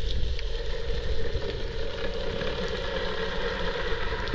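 Underwater ambience picked up by a submerged camera: a steady low rumble with a constant hum and a few faint scattered clicks.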